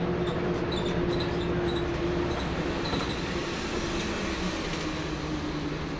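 Interior sound of a Jelcz 120M/3 city bus under way: its WSK Mielec 11/300/1 diesel engine and drivetrain running with a low rumble and a steady whine. About halfway through, the whine drops slightly in pitch and the sound eases as the bus slows. A few faint high squeaks come from the cabin.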